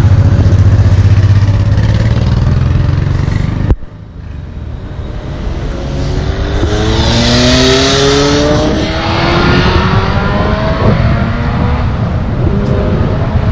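A steady low traffic drone that cuts off abruptly about four seconds in. Then a road vehicle accelerates past on the motorway, its engine note rising with tyre hiss peaking as it passes, over general traffic noise.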